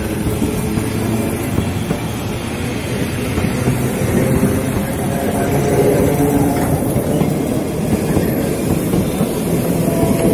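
The Train Jaune, an electric metre-gauge train, rolling past close by: a steady rumble of wheels on rails with a low hum, growing a little louder about halfway through.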